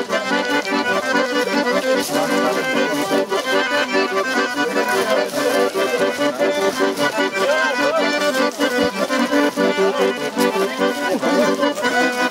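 Piano accordion playing a folk dance tune, its notes changing quickly at a steady level.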